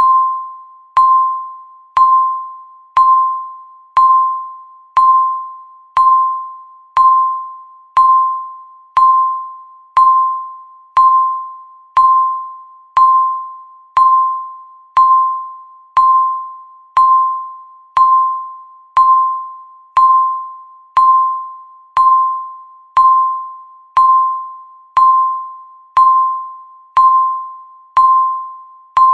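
Countdown timer beep: a single pitched electronic tone sounding once every second, each one struck sharply and fading away before the next.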